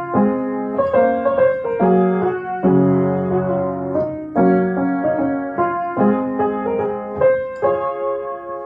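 Light piano music, chords and melody notes struck one after another, slowly getting softer near the end.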